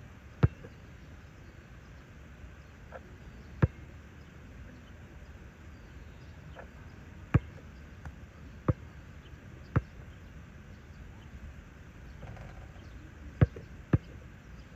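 A basketball thudding on a hard outdoor court and against the hoop, seven sharp single thuds at uneven gaps, the last two close together near the end as it is dribbled. A steady outdoor hum lies underneath.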